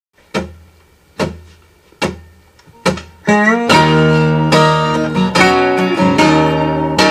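Two acoustic guitars: four single strummed chords about a second apart, each left to ring and die away, then a note gliding up in pitch and both guitars playing on together.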